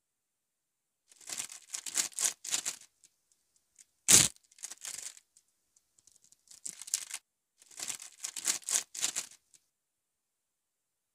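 Snack packaging being torn open and crinkled: bursts of crackling wrapper rustle, with one sharp rip about four seconds in, the loudest sound.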